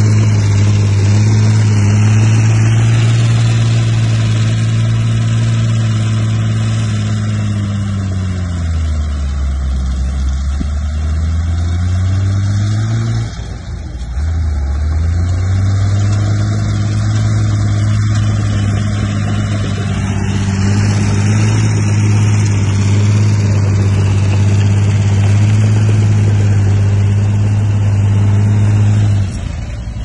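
Bulldozer's diesel engine running hard and steady. About nine seconds in, its pitch sags for a few seconds, breaks off briefly, then climbs back and holds steady until it eases off near the end.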